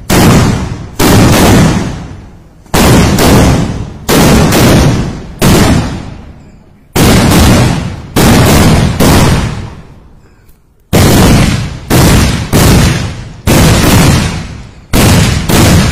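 A row of kathina vedi, Kerala temple firecrackers set in the sand, going off one after another as they are lit: sharp, loud bangs about once a second, sometimes two close together, each echoing away. There is a pause of about a second and a half a little past the middle.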